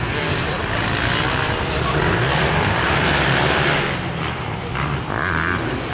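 Motocross motorcycle engine running under hard throttle as the bike climbs the dirt track, louder from about a second in and easing off after about four seconds.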